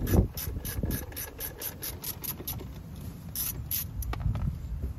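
Hand ratchet clicking in quick, even strokes, about five clicks a second, as it turns a fastener under the dashboard, with a few more clicks a little later.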